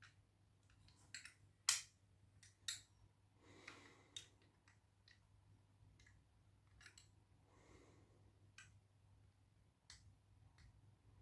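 Scattered light clicks and taps of small hard objects being handled, the sharpest about 1.7 s in, with two brief soft rustles, over a faint low hum.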